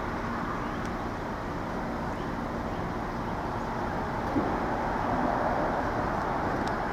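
Steady outdoor road-traffic noise, a constant hum of cars, swelling slightly about five seconds in as a vehicle passes.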